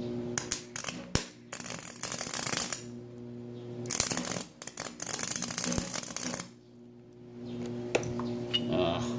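Wire-feed arc welder at 80 amps, running ER5356 flux-cored aluminum wire on aluminum: the arc crackles and sputters in three short bursts, with a steady hum between and after them. The wire is not laying a weld on the aluminum.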